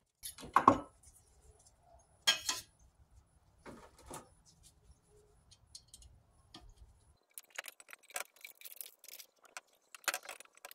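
Laboratory glassware and metal clamps being handled on a distillation stand: a few sharp clinks and knocks in the first four seconds, then a busier run of clinking and rattling from about seven and a half seconds.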